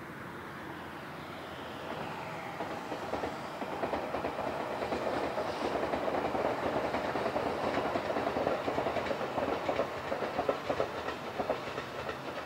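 A 253 series 1000-subseries electric train approaching at speed out of service. It grows louder over the first few seconds, with the wheels clacking rapidly over rail joints.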